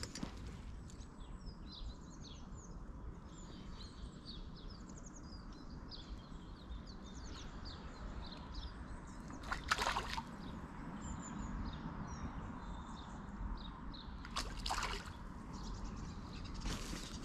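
Small songbirds chirping over the steady running of a small river, with brief louder water splashes about ten seconds in and twice more near the end.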